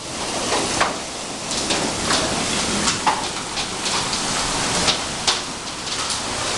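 Heavy rain and hail beating down hard, a steady hiss of downpour with many irregular sharp ticks of hailstones striking surfaces.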